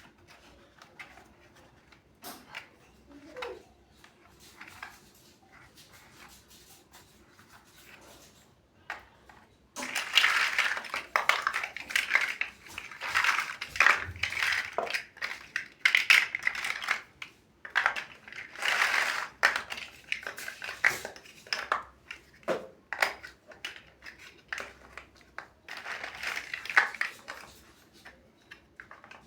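Plastic toy building bricks being handled. Light clicks and taps come first; about ten seconds in, a louder rattling clatter of loose bricks being sifted and pressed together starts and comes in bursts, with sharp clicks between.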